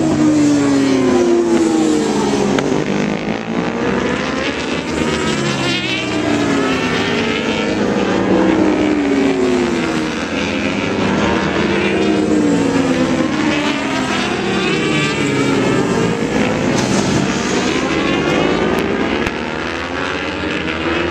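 World Superbike racing motorcycles running hard through a corner one after another, their engines revving up through the gears so the pitch keeps rising and falling.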